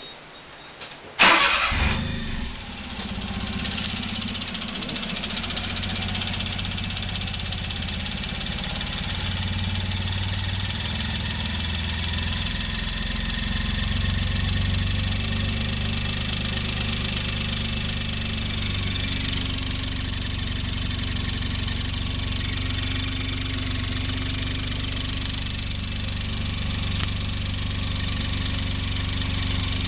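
Suzuki Alto Works engine starting about a second in, then idling steadily with a continuous high squeal from a slipping alternator drive belt. The squeal is the sign of a worn belt and alternator, both due for replacement.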